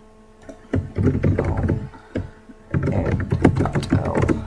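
Computer keyboard typing in two quick flurries of keystrokes, the first about a second in and the second from near the middle almost to the end.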